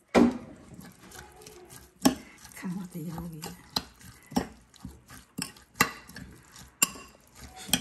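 A metal spoon stirring and scraping through chopped shallots and herbs in a ceramic bowl, with several sharp clinks as it knocks against the bowl about every second or so.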